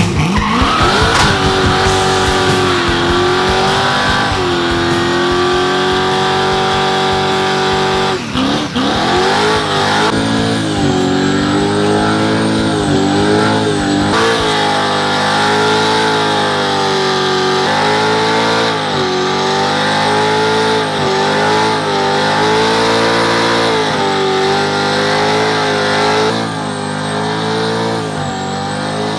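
Hot rod engine revved up hard and held at high revs during a burnout, tires spinning and squealing; the revs dip briefly about eight seconds in, then climb again and keep wavering.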